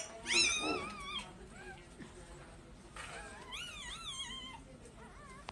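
A small pet animal crying in high, wavering calls: two drawn-out cries a few seconds apart, and a shorter one near the end.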